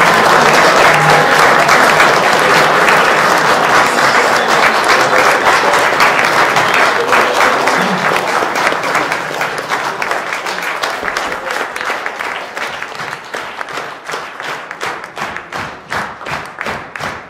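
Audience applauding: a dense round of clapping that slowly fades, then settles into rhythmic clapping in unison, about two to three claps a second, for the last few seconds.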